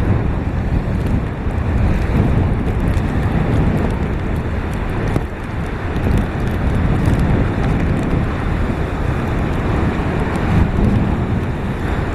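Hurricane-force wind buffeting the microphone: a loud, steady low rumble that surges a little from moment to moment.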